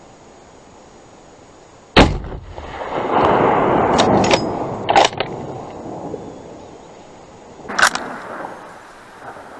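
A single .308 hunting rifle shot about two seconds in, followed by a long rolling rumble with a few sharp clicks in it, and a second, weaker sharp crack near eight seconds.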